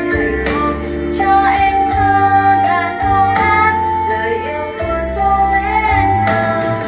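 A girl singing solo over a pop backing track with bass and percussion, holding long notes.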